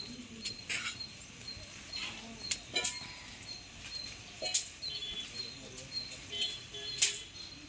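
A few scattered sharp clicks and taps, the loudest near the end, over a quiet background with faint short high chirps.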